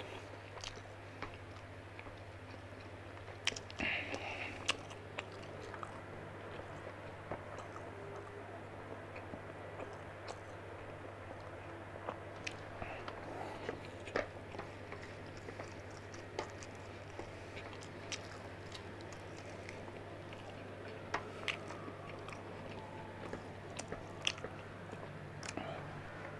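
Close-up chewing and biting of a man eating tomato rice and fried chicken with his fingers: many small crunches, clicks and mouth noises. A steady low hum sits underneath.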